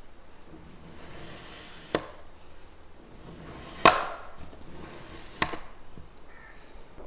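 Kinetic sand being cut, the blade hitting the surface beneath in three sharp taps a couple of seconds apart. The middle tap is loudest and is followed by a short crumbling hiss.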